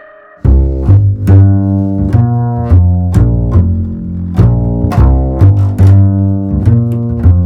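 Background music: low notes changing about twice a second, with sharp ticks over them, starting suddenly about half a second in.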